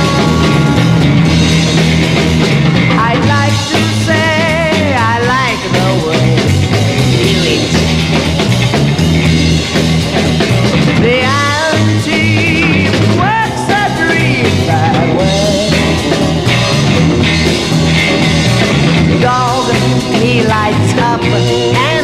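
A 1960s rock song played by a band, with drums and a steady bass line under a male lead vocal that comes in phrases several times, its pitch wavering.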